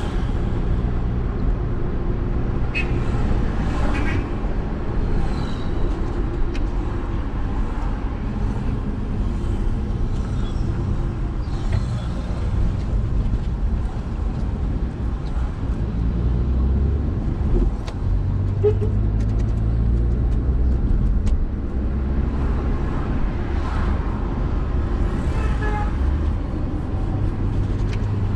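Car driving in traffic, heard from inside the cabin: a steady engine and road hum whose pitch shifts now and then.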